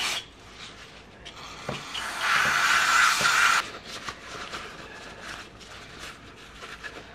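Aerosol can of brake cleaner spraying through its straw in one steady hiss of about two seconds, with paper towel rustling and small parts clicking as they are wiped before and after it.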